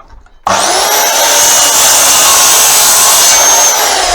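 Electric power saw switched on about half a second in, running with a loud high whine while cutting a section of pole. Near the end it is released and the whine falls as the blade spins down.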